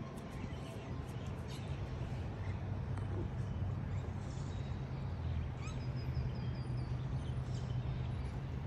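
Outdoor ambience: a steady low hum with small birds chirping over it, including a quick run of six or seven chirps about six seconds in.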